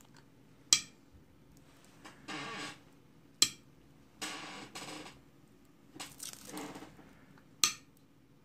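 Automated camera-module test jig cycling: three sharp mechanical clacks a few seconds apart from the socket mechanism, with short bursts of the mechanism moving between them.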